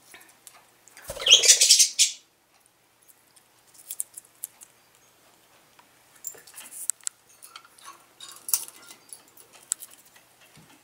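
A budgerigar eating red chard and baby spinach in its cage: scattered small clicks and crunches of its beak at the leaves. About a second in, a louder rustling burst lasts about a second.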